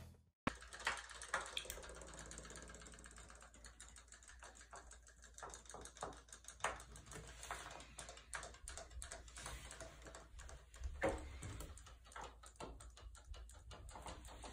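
Faint, irregular clicking and ticking from robotic fish bath toys swimming in shallow bathtub water, over a low steady hum.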